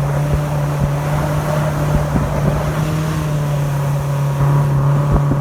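Speedboat engine running steadily at speed: a loud, even drone over a rough low rumble.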